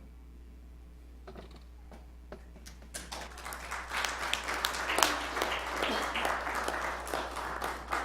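Congregation applauding after a song, starting about three seconds in and stopping near the end, with many individual claps heard.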